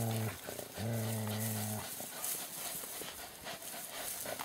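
A dog growling in two long, low, steady growls during a tug-of-war over a stick with another dog; the second growl ends a little under two seconds in.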